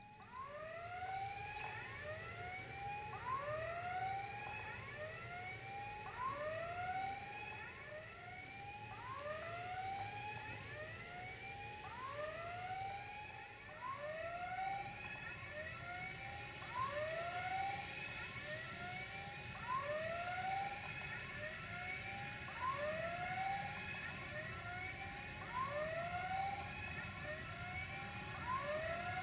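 Siren-like warbling tones, each rising then falling in pitch, repeating about once or twice a second at a few different pitches and overlapping one another.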